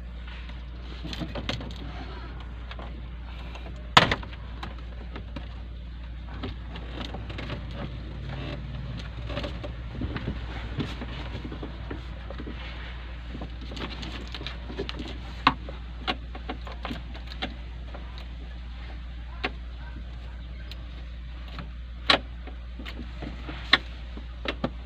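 Scattered sharp clicks and knocks as the truck's plastic dashboard trim panel and wiring are handled, the loudest about four seconds in, over a steady low hum.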